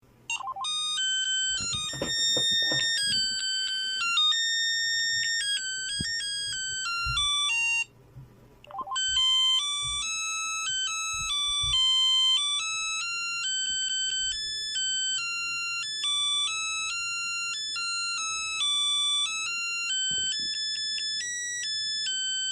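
Smartphone ringtone: a bright electronic melody of short, high notes. It breaks off for about a second around eight seconds in, then a melody plays on.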